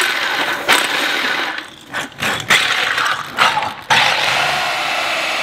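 DeWalt D25313K SDS-plus rotary hammer turning a diamond core bit in a concrete wall, run in short stop-start bursts, then steadily from about four seconds in. The bit is about half an inch from breaking through the wall.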